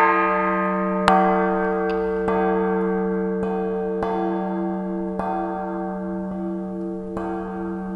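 La Piagnona, the great church bell of San Marco in Florence, tolling with about eight strokes roughly a second apart. Each strike rings out over a long, steady hum, and one of its tones pulses as it rings.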